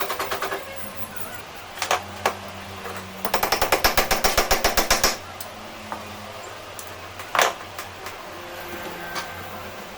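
Rapid runs of sharp metallic knocks, about ten a second, the longest lasting nearly two seconds midway, with a few single knocks between, over a steady low hum.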